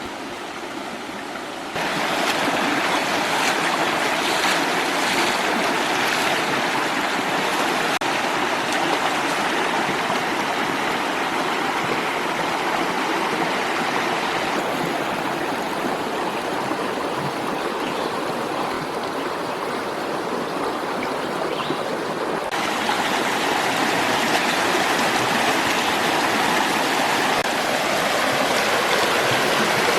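Steady rush of flowing stream water, growing louder about two seconds in, with shifts in tone near the middle and again later.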